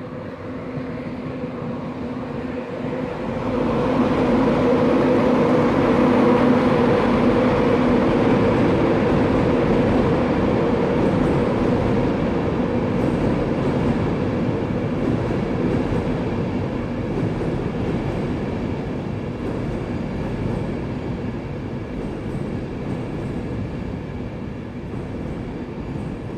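Intercity passenger train running slowly along a station platform road. The rumble builds over the first few seconds, then slowly eases as the coaches roll by, over a steady low hum.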